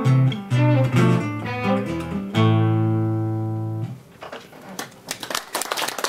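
Acoustic guitar and violin playing the closing bars of a song, ending on a chord struck about two and a half seconds in that rings for about a second and a half and is then cut off. Audience applause starts about a second later.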